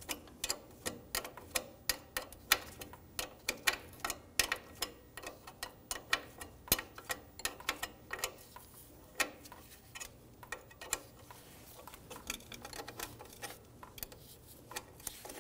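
Light metallic clicks and taps at an uneven pace, a few a second, of a wrench working a brake line's 3/8 inch fitting loose from a drum-brake wheel cylinder.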